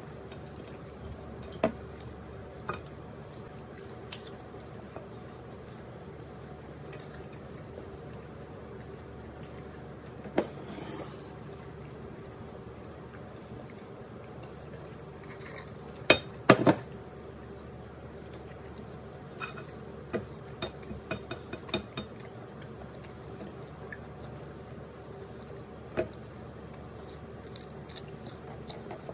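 Eating sounds from fried chicken eaten by hand, with a sip from a glass: scattered wet clicks and smacks over a steady low hum. The loudest is a quick cluster of clicks about halfway through.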